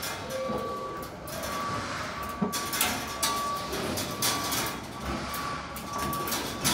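A machine's motion or backup alarm beeping: one steady high beep that repeats about once a second. Irregular metallic clinks and rattles sound over it.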